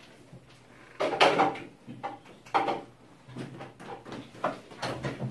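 A few sharp clacks and rattles from a box of chalk being handled and set down on a desk, the loudest about a second in and another near the middle.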